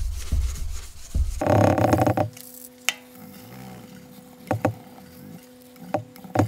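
Detailing clay bar rubbed over the wet inner barrel of an alloy wheel, lubricated with wheel cleaner and water: a loud rubbing scrape in the first two seconds, then quieter, with a few light clicks and a faint steady hum.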